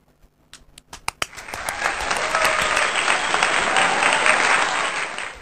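Crowd applause sound effect that rises in about a second and a half in, holds steady, and cuts off suddenly, preceded by a few sharp clicks.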